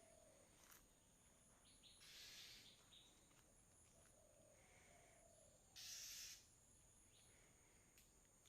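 Near silence: faint outdoor ambience with a steady high-pitched insect trill and two short hissing bursts, about two and six seconds in.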